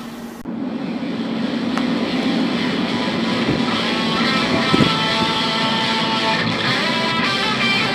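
Background music led by guitar, getting louder about half a second in.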